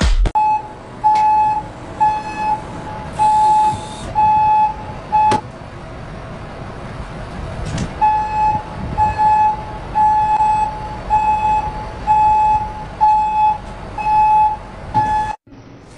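Bus wheelchair lift's warning beeper sounding a steady, evenly repeated beep, about one and a half a second, while the lift platform is in use. It stops for about three seconds midway, then resumes. The bus engine runs low underneath.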